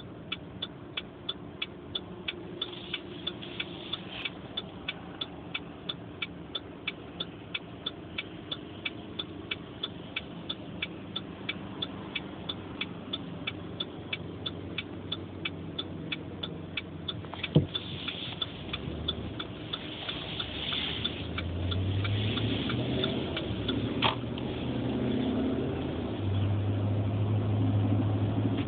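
Car engine and road noise heard from inside the cabin of a slowly moving car, with an even light ticking about two and a half times a second that fades out a little past halfway. One sharp click comes about halfway through, and the engine grows louder in the last third as the car picks up speed.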